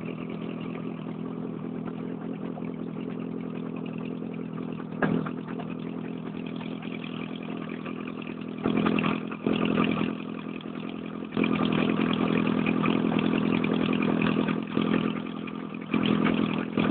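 Paddle-wheel pontoon boat's engine running steadily, with a single knock about five seconds in. From about nine seconds in there are louder stretches of clatter as the paddle wheel breaks through ice.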